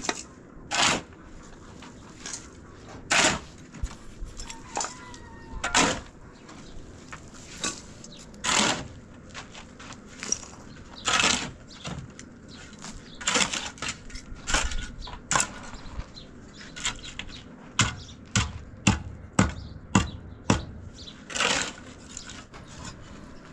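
A long run of irregular knocks and short scraping strokes, some sharp and some lasting a few tenths of a second, coming thicker near the end.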